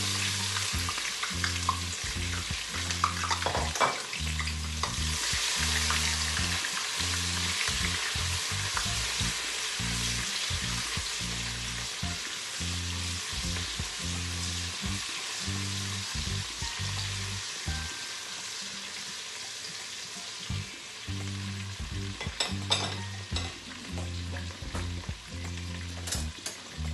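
Chopped onions sizzling as they fry in hot vegetable oil in a pot, with a few clicks of the stirring utensil against the pot.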